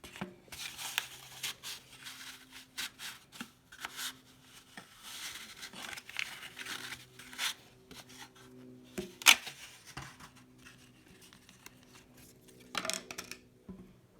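Cards and cardboard being worked out of a tightly packed trading card box: irregular scraping, rubbing and rustling, with one loud click about nine seconds in.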